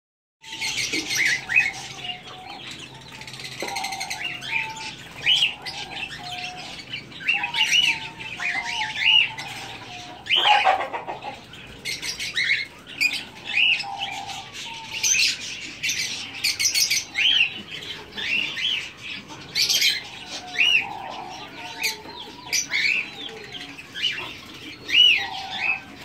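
Caged budgerigars chirping and chattering: a steady stream of short rising-and-falling chirps from several birds, with lower warbling phrases in between.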